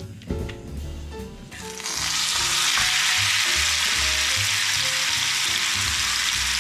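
Chuck roast searing in a hot pan: a loud, steady sizzle that starts suddenly about two seconds in, over faint background music.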